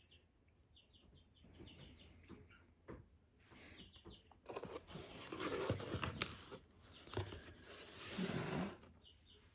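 Cardboard mailer box being opened by hand: the tuck-in flap and lid scrape and rustle for about four seconds from about halfway through, with a couple of sharp clicks.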